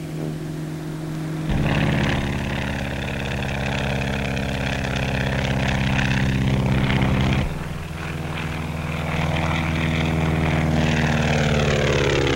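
Biplane's radial piston engine and propeller droning steadily, shifting pitch a couple of times, then falling in pitch near the end.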